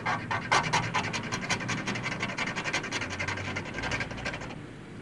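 A metal point scraped rapidly back and forth over the painted metal panel of a Vespa scooter, about eight quick strokes a second, stopping about four and a half seconds in.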